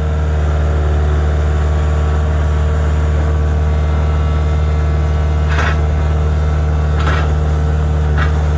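A heavy equipment engine running steadily at a constant speed, with a few brief higher-pitched sounds in the second half.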